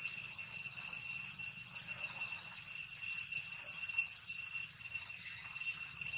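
A steady, high-pitched ringing drone with several overtones stacked above it, holding unchanged throughout, over a faint low hum.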